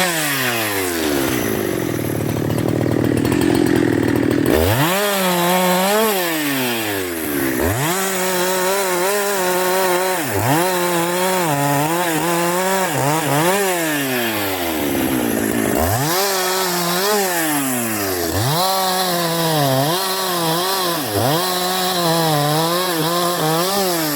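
Husqvarna 372 XP two-stroke chainsaw engine revved again and again: it climbs to a high full-throttle whine, holds briefly and drops back, falling to idle twice before revving up again.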